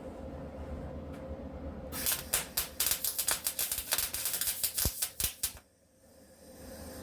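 Welding arc crackling in a run of irregular sputters as a sheet-metal rust patch is welded in. It starts about two seconds in after a low shop hum and stops sharply near six seconds.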